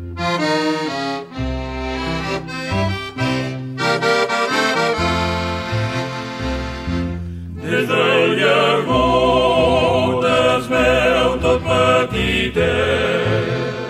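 Havanera band's accordion playing an instrumental interlude, with held chords over a stepping bass line. About eight seconds in, a held melody with strong vibrato comes in over the accordion.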